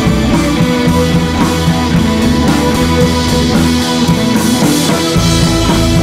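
Background rock-style music with guitar and drums. The deep bass drops away near the start and comes back in strongly about five seconds in.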